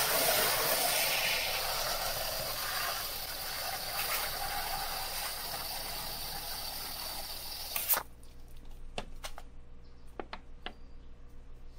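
Liquid concentrate trickling from its bottle into a water-filled plastic PET bottle, a steady hiss that cuts off suddenly about eight seconds in. Faint scattered ticks follow.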